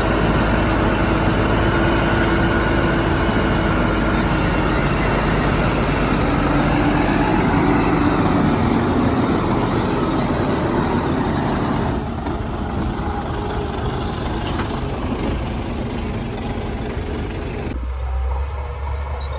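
Heavy diesel earthmoving machinery running under load. The engine note drops partway through, and the sound gets quieter about twelve seconds in.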